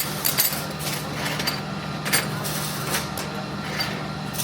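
Irregular metal clinks and taps, about eight in four seconds, over a steady low machine hum in a welding shop.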